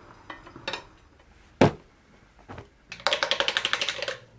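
A few light clicks and one sharp knock, then about a second of fast, even rattling clicks, roughly fifteen a second.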